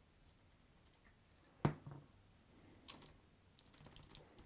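A small telephone hook switch being clicked by hand to work contact cleaner into its dirty contacts: one sharp click about a second and a half in, then a run of small, faint clicks near the end.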